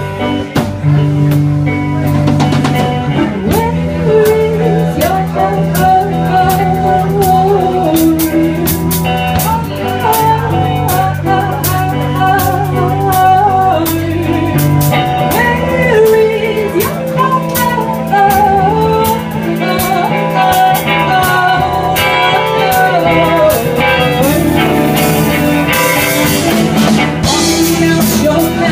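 Live band playing: a bowed violin carries a gliding melody over a drum kit, with dense cymbal hits, and an electric guitar.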